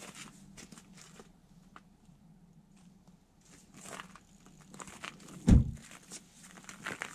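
Rustling of an insulated snowsuit and crunching snow as an ice angler handles his line and rod to bring up a hooked fish, with scattered small clicks. There is one brief low thump about five and a half seconds in.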